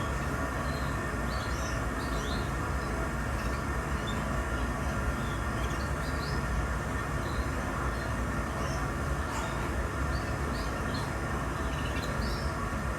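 Canaries chirping in short, scattered calls over a steady, loud droning background noise.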